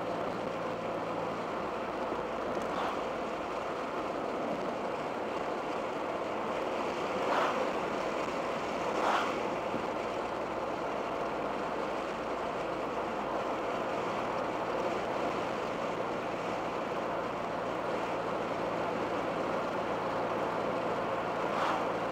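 Steady in-cabin drone of a 1987 Dodge Daytona Shelby Z cruising at part throttle: its 2.2 L Turbo II four-cylinder engine humming under tyre and wind noise. A few brief whooshes stand out, about 3, 7 and 9 seconds in and again near the end.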